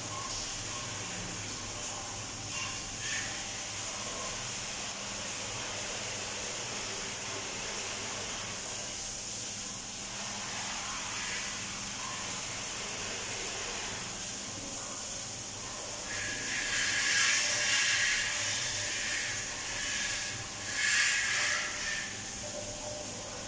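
Steady hiss of water spraying in a fine mist while a washroom is washed down after a sandstorm. The spray grows louder in two surges near the end.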